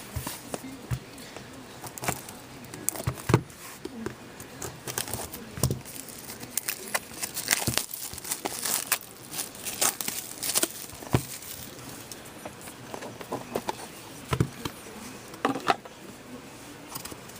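Wrapping on a box of hockey trading cards being torn open and crumpled by hand, with a run of irregular crinkles and small clicks that is busiest in the middle.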